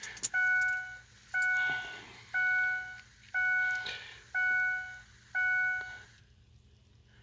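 Truck's key-on warning chime: six evenly spaced electronic beeps, about one a second, each held for most of a second at one steady pitch.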